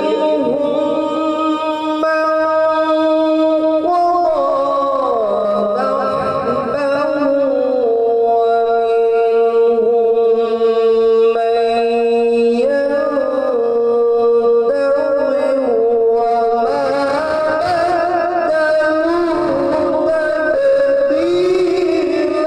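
A man's melodic Quran recitation (tilawat) into a microphone, unaccompanied: long held notes that waver and turn in ornamented melismas, the melody shifting to a new pitch every few seconds.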